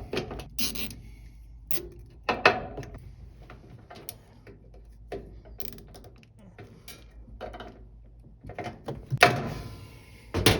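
A plastic zip tie being pulled tight around a washer's lid switch, its ratchet zipping in short strokes amid handling clicks and rustles, with the longest, loudest zip about 9 seconds in.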